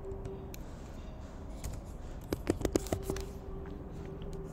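Computer keyboard keys clicking in a quick run of taps, starting about a second and a half in and lasting about a second and a half.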